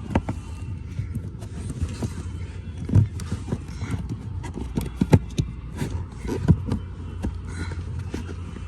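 Irregular plastic clicks and knocks as the cabin air filter cover is slid and pressed back into place, the loudest about three, five and six and a half seconds in, over a steady low hum.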